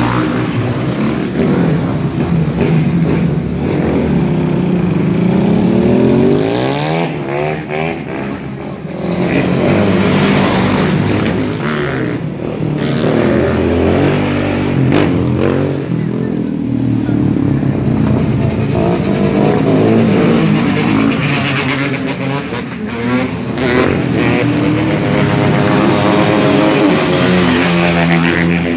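Dirt bike and quad bike engines revving as the machines ride past, several engines overlapping, their pitch climbing and falling again and again as the riders open and close the throttle during wheelies.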